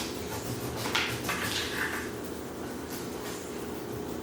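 Faint kitchen handling noises, a few short scrapes or knocks, over a steady low hum.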